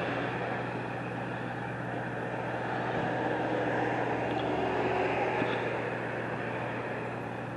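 Steady motor-vehicle traffic noise with a constant low hum, swelling slightly as a vehicle goes by about four to five seconds in.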